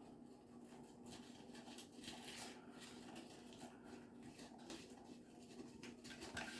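Faint scratching and rustling of cardboard as a black-headed caique parrot chews and works a toilet paper roll with its beak, over a faint steady hum.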